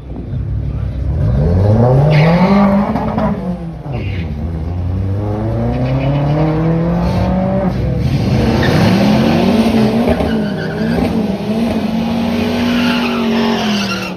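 Drag car launching off the start line and accelerating hard down the strip, its engine rising in pitch through the gears. In the second half a nearby engine revs in quick repeated rises.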